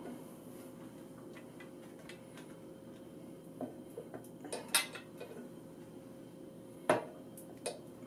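Chrome Mac Performance 4-into-2 exhaust pipe on a Honda CB750K5, pushed up by hand and clinking against the frame: a few light metallic ticks, with louder knocks about four and a half and seven seconds in. The pipe hits the frame because the headers route it in under the bike, which the owner takes as a sign that they are the wrong headers for this frame.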